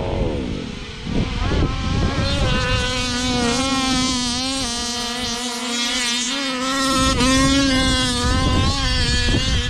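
Radio-controlled basher car's motor running with a buzzing whine that wavers up and down in pitch with the throttle, after a rougher, noisier start.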